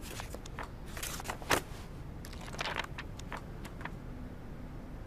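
Quiet rustling and a few light clicks from something being handled, with one sharper click about one and a half seconds in.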